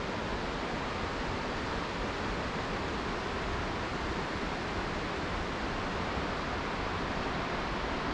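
Steady rushing of the Klamath River's flowing water, an even hiss without breaks.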